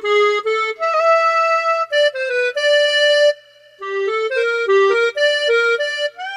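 Ensoniq ASR-10 sampler playing a sampled reed-instrument patch, recorded direct from its outputs: a melody of quick stepwise runs and held notes, with a short break about halfway through.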